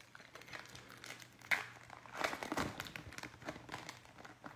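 Basketball trading-card pack wrapper being opened and crinkled as the cards are pulled out: a run of crackling with one sharp snap about a second and a half in.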